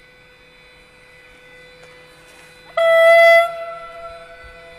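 Electric locomotive horn (Siemens Vectron 111Ed) giving one short, single-pitched blast about three seconds in, sounded as the locomotive departs, then trailing off. A steady faint hum runs underneath.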